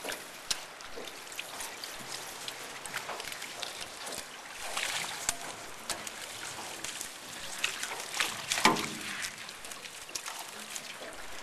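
Water trickling and dripping off a salmon gillnet as the wet mesh and cork line are pulled in over an aluminium skiff's gunwale, with scattered clicks and knocks. The loudest knock comes about three-quarters of the way through.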